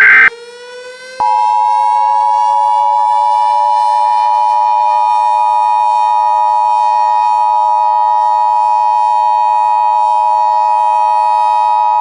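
Emergency Alert System tones: a loud data burst cuts off just after the start, and about a second in the two-tone EAS attention signal comes on and holds steady. Under it, a civil defense siren, having wound up, holds one steady pitch.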